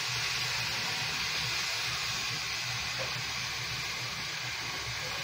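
Rice in ghee sizzling and steaming in a hot frying pan: a steady hiss.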